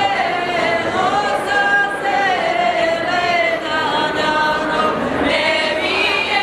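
Women's voices singing a traditional Kosovo Serbian folk song a cappella, one melody line together, its notes sliding and bending.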